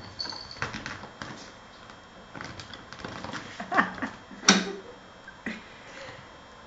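Kittens playing on a parquet floor: scattered scuffles, taps and knocks at irregular intervals, the loudest a sharp knock about four and a half seconds in.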